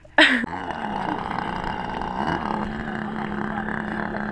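Radio-controlled model airplane engine running steadily, after a short loud burst of noise just at the start.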